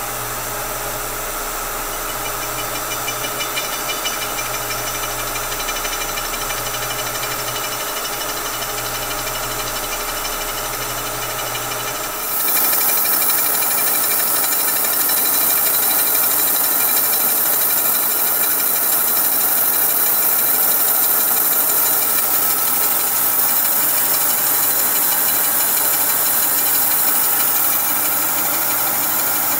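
Kearney & Trecker horizontal milling machine running, its arbor-mounted slitting saw feeding through a cast water neck under mist coolant, a steady machine drone with several fixed tones. About twelve seconds in it gets louder, with a strong hiss on top.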